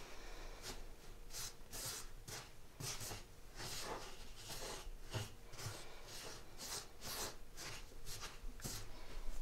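Fingers rubbing and squeezing crumbly semolina dough in a bowl, a soft scraping rustle with each stroke, about one or two a second, as a little water is worked in to bind it.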